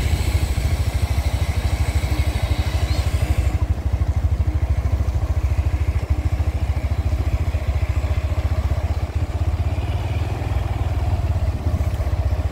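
A vehicle travelling along a road: a steady low engine rumble with a rapid pulsing, and a hiss over it that drops away about three and a half seconds in.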